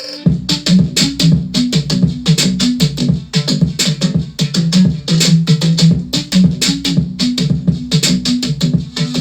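Electronic music with a steady drum-machine beat and bass line, played through a DULCET DC-F200X car stereo under sound test. The track starts about a quarter second in, right after the previous one cuts off.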